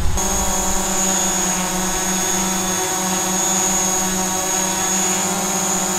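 DJI Mavic Pro quadcopter hovering with mixed propellers, two 8331 low-noise and two original Mavic Pro props: a steady buzzing propeller hum with a thin high motor whine above it. A low rumble cuts off just as it begins.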